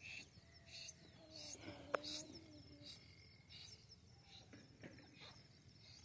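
Near silence with faint high peeps from a young teetar (francolin) chick and a faint low human voice murmuring, along with a few short soft hissy whispers. A single soft click comes about two seconds in.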